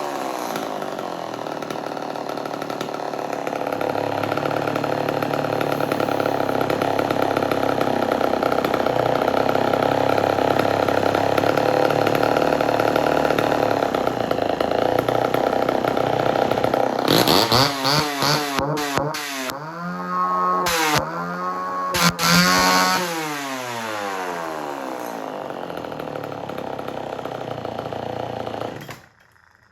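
Homelite Super XL two-stroke chainsaw engine running steadily at speed. It is revved up and down several times, then drops back to a lower idle and cuts off near the end. The engine is running well with only its idle and low-speed carburettor screws adjusted.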